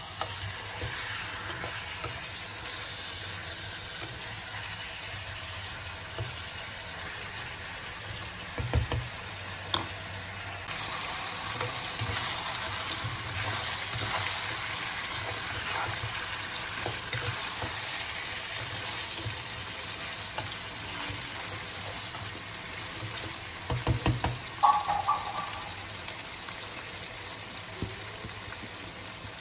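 Chicken pieces sizzling as they fry in oil in a wok, stirred with a spatula. The steady sizzle is broken by a few sharp knocks, about nine seconds in and again around twenty-four seconds in.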